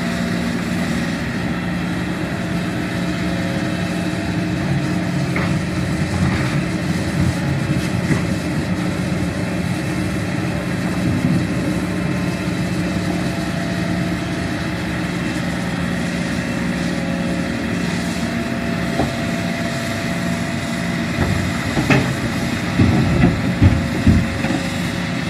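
Hitachi Zaxis 210F excavator's diesel engine running steadily as it digs and swings. Near the end, dirt and rocks thud into the steel bed of the dump truck as the bucket unloads.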